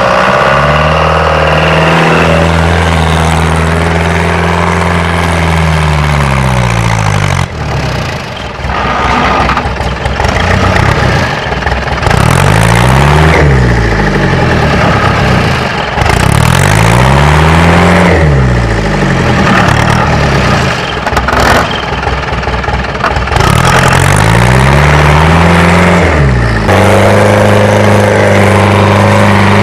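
ARO 4x4 off-roader's engine working hard in mud and snow: held at steady revs, then revved up and let fall about three times, then held steady again near the end.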